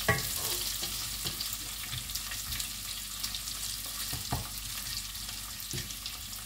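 Boiled potato cubes sizzling as they fry in hot oil in a metal pan, stirred with a wooden spatula that knocks and scrapes against the pan now and then, most sharply right at the start.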